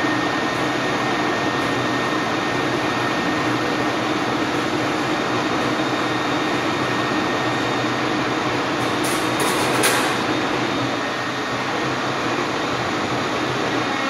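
STEP 100 escalator cleaning machine running steadily on the escalator steps, a continuous machine noise, with a few brief sharp ticks about ten seconds in.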